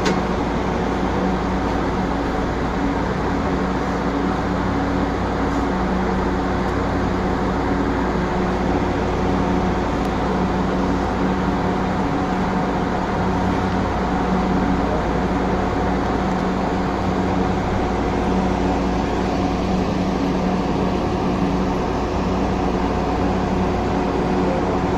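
Steady hum of a light rail car's electrical equipment with running noise, heard inside the driver's cab.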